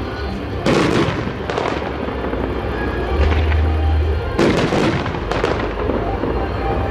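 Aerial fireworks bursting: a string of sharp bangs at irregular spacing, about eight in all, several coming in quick pairs, over a low steady rumble.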